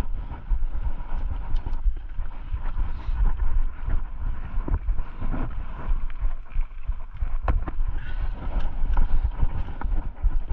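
Wind buffeting the microphone over the rattle and knocks of a Rocky Mountain Instinct full-suspension mountain bike rolling over a rough trail, with many short clicks and clatters from the bike.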